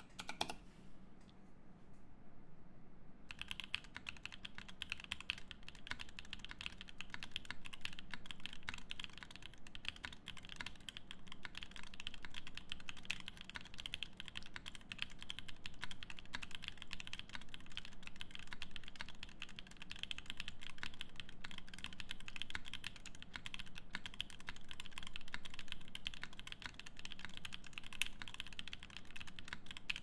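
Fast continuous typing on a Keycult No.1/65 mechanical keyboard with lubed Pomcicle linear switches, a polycarbonate plate and GMK keycaps: a dense, even run of keystrokes that starts about three seconds in.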